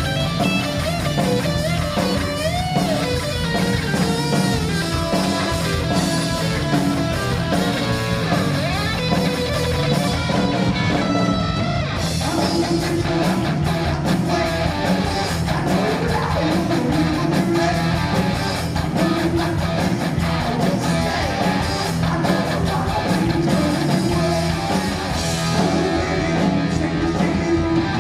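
Heavy metal band playing live, with electric guitar to the fore over bass and drums.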